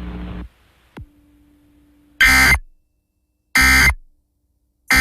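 Emergency Alert System SAME header data bursts: three identical harsh, buzzy digital screeches, each about half a second long and about 1.3 s apart, marking the start of a new alert. Before them, a background music bed cuts off about half a second in, followed by a click.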